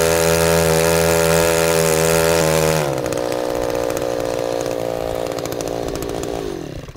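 Small weed-eater-engine gas outboard motor running loud and high-revving at full throttle. About three seconds in it is throttled back to a lower, steady speed, then near the end it winds down and shuts off.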